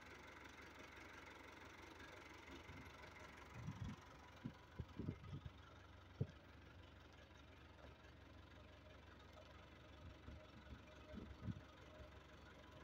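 Backhoe engine running faintly and steadily as a low hum, with a few soft knocks about four to six seconds in and again near the end.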